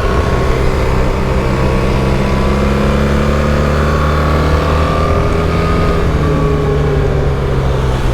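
BMW GS adventure motorcycle's engine running at speed on a track lap, its pitch climbing a little near the middle and easing off later.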